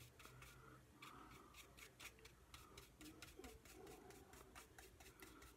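Faint, quick, repeated scratching of a flat paintbrush dry-brushing nearly dry paint across the edges of a wooden sign.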